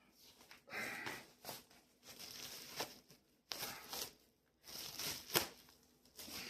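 Plastic shrink wrap being torn and peeled off a vinyl record sleeve, crinkling faintly in short, irregular bursts with a few sharp crackles.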